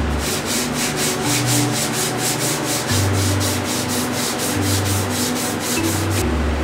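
Hand sanding with a sanding sponge over the gray filler primer on a car fender: a quick, even scratchy rasp of back-and-forth strokes, about five a second, that stops about six seconds in.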